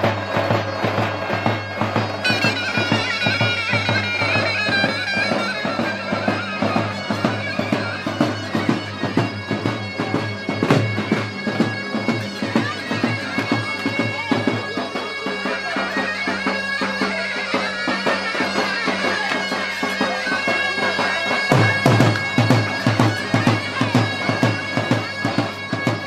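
Loud traditional folk dance music: a shrill reed wind instrument plays a wavering melody over steady drum beats and held drone tones.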